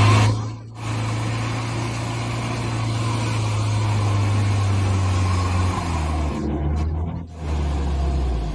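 Mercedes-Benz GLK260 SUV's engine running hard under load on a mud slope, a steady drone that drops to a lower pitch about six seconds in. The sound dips briefly twice, soon after the start and about seven seconds in.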